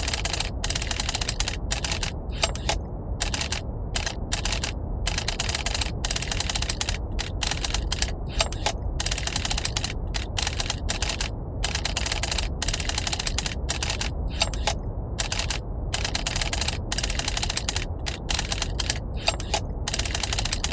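Typewriter keys typing very rapidly in runs broken by short pauses, over a steady bed of brown noise.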